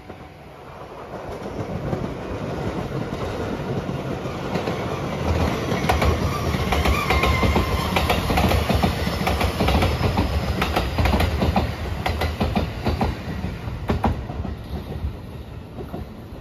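Rapid Marine Liner electric multiple-unit train passing close by, with its wheels clattering in a quick run of clicks over the rail joints. The sound builds up, is loudest through the middle, and fades away near the end.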